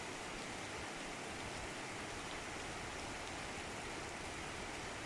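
Downpour: heavy rain falling steadily, an even hiss with no let-up.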